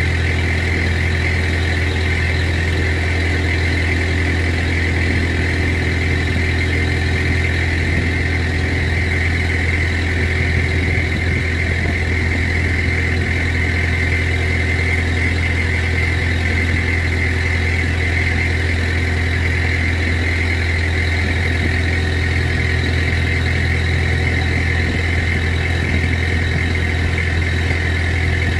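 Long-tail boat engine running steadily at cruising speed, a constant unbroken drone.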